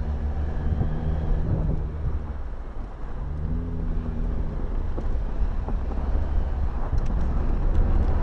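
Vehicle engine running at low trail speed, with wind buffeting the microphone and tyre noise on sand and gravel. The engine eases off about two and a half seconds in, then its pitch rises as it accelerates again.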